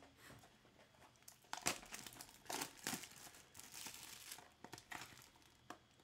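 Clear plastic shrink-wrap being torn off a trading-card box and crinkled in the hand: irregular crackles and snaps starting about a second and a half in.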